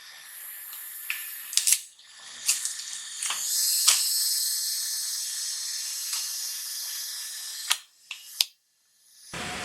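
Food sizzling in a hot pan: a strong high hiss swells up after a knock about four seconds in and slowly fades, with clicks and knocks of utensils before and after it. It stops short near the end.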